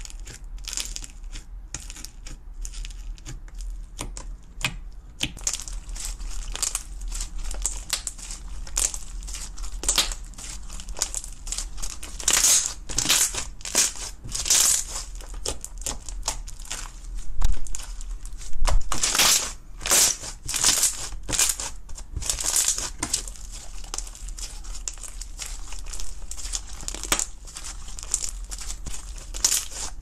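Slime packed with small foam beads being poked, pressed and kneaded by hand, giving a dense run of crackling, crunching pops, louder in stretches around the middle.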